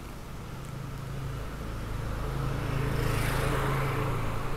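A motor scooter passing close by on the street, its engine hum growing louder over the first three seconds or so and peaking near the end.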